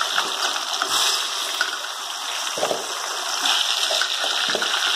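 Sweet potato chunks deep-frying in hot oil in an aluminium pot: a steady, loud sizzling and bubbling. Twice, a dull knock cuts through it, about two and a half and four and a half seconds in.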